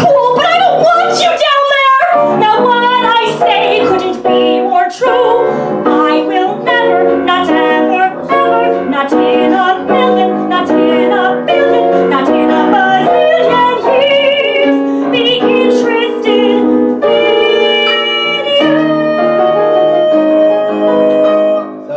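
A woman singing a song to piano accompaniment. It closes on a long held note near the end.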